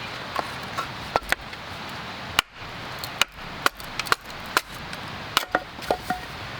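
A fixed-blade camp knife being batoned through split firewood: a stick knocks sharply on the blade's spine, roughly twice a second, splitting the wood, with a few strikes leaving a brief ring.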